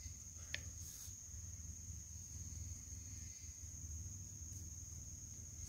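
An insect's steady, unbroken high-pitched call in the forest, over a low rumble, with a faint click about half a second in.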